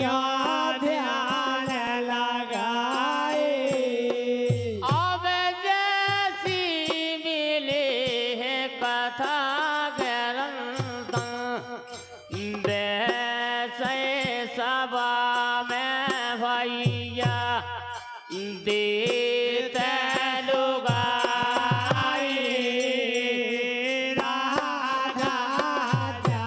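Devotional bhajan: a man sings long, drawn-out melodic lines over a fast, steady clatter of hand-held wooden clappers with metal jingles.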